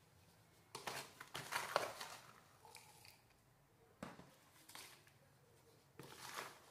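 Loose potting mix being scooped and packed into a pot while backfilling around the roots: rustling, crunching handfuls in three bursts, about a second in, around four seconds in, and near the end.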